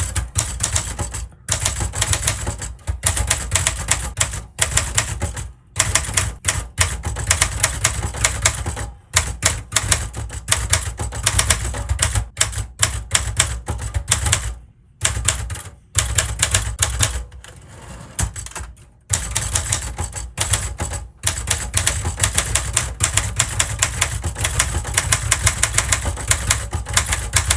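Czech-made 1970 Commodore 2200 manual typewriter being typed on: quick runs of sharp keystroke clacks with several brief pauses between the runs.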